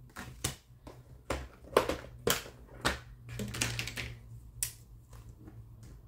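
Hands handling Australian polymer banknotes and a clear plastic binder pocket, making an irregular run of sharp clicks and crinkles.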